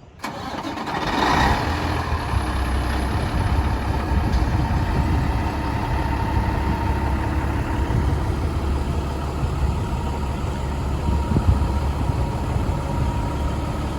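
Diesel truck engine idling steadily with a deep rumble and a faint steady whine; it comes in abruptly at the start.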